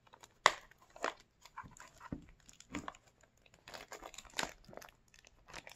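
Small shrink-wrapped cardboard toy box being turned over in the hands: scattered crinkles and light taps, the sharpest about half a second in.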